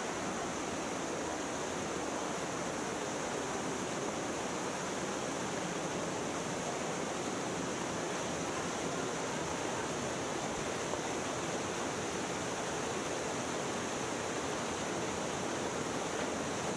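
Canyon stream rushing over rocks: a steady, even hiss of flowing water.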